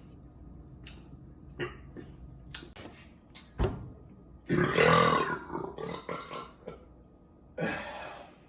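A long, loud burp from a beer drinker about halfway through, trailing off over a second or so, after a few small clicks and a low thump. A shorter rasping sound comes near the end.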